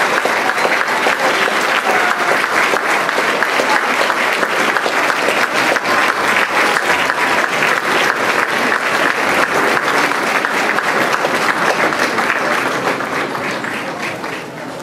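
Audience applauding steadily, a dense patter of many hands, fading away over the last couple of seconds.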